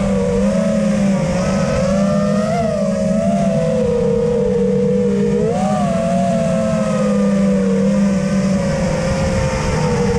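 FPV freestyle quadcopter's brushless motors and propellers whining in flight, the pitch rising and falling with the throttle, with short swells about two and a half and five and a half seconds in.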